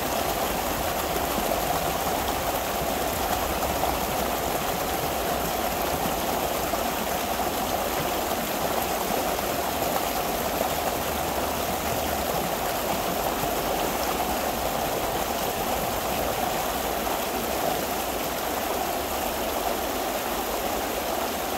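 Pond water rushing steadily out through a breach dug by hand in a beaver dam: a continuous even gush as the pond drains.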